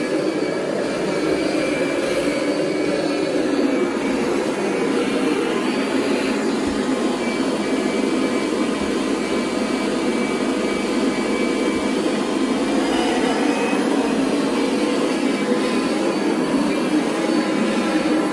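Kirby G5 upright vacuum cleaner running steadily with its carpet shampoo attachment fitted.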